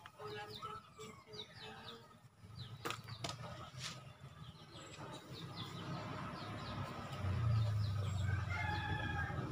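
Outdoor yard ambience: chickens and small birds calling with quick chirps, and a few sharp knocks of handled objects about three to four seconds in. A low rumble swells near the end.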